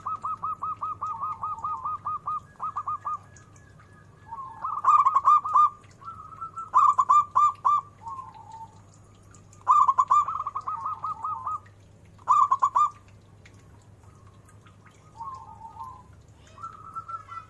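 Zebra dove (perkutut) singing: several phrases of quick, repeated cooing notes with short pauses between them, some phrases much louder than others.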